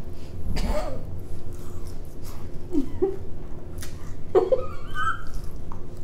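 Close-up eating sounds: mouth noises and small clicks while biting and pulling at a cheese corn dog. There is a knock about half a second in, a few short hummed 'mm' sounds, and a brief high-pitched squeak near the end, over a steady low hum.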